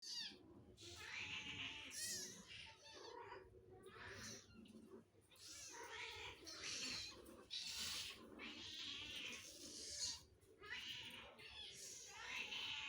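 Cats meowing over and over, one call after another with hardly a break, begging for food.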